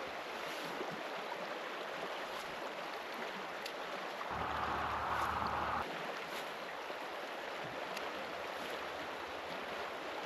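Salmon River water rushing over rocks, a steady hiss, a little louder for a second or so about four seconds in.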